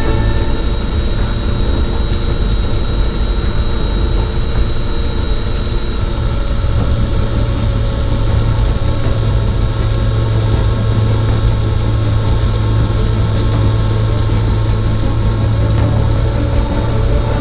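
A motor running steadily, with a deep hum and a thin high tone that fades out about six seconds in.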